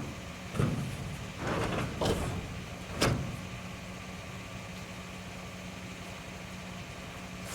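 A vehicle engine idling steadily, with a few knocks and clunks in the first three seconds.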